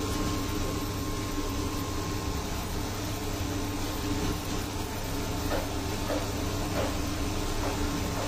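Steady whirring hum of an induction cooktop running under a covered pan of simmering curry, with a few faint short sounds between about five and seven seconds in.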